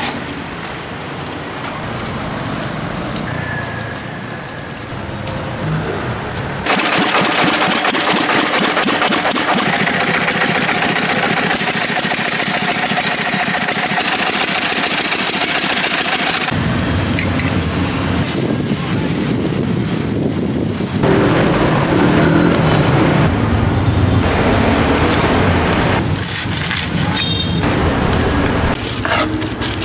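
Street-food stall sounds in quick succession, cut abruptly one to the next. The longest is a small engine-driven extruder running steadily for about ten seconds in the middle as it presses out a rope of white dough.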